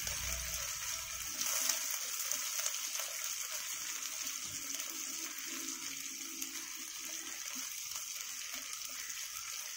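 Garlic, cumin, curry leaves and chillies frying in hot sesame oil in a clay pot: a steady sizzle. There is a brief low rumble in the first second or so.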